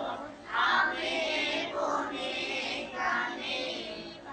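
Large group of schoolchildren singing together in unison, in short loud phrases one after another.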